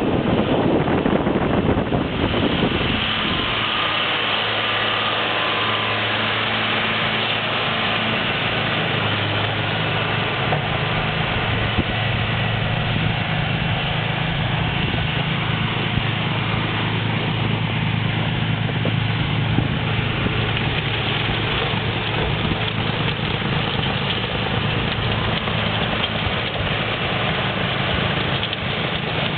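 John Deere 4450 tractor's six-cylinder turbo diesel running at a steady speed, driving a snowblower, with a continuous rushing noise over the engine hum. For the first two seconds, wind buffeting the microphone covers it.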